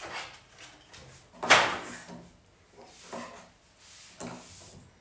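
Irregular handling noises on a tabletop: a cloth rustling and wiping across the surface, with one sharper knock about one and a half seconds in.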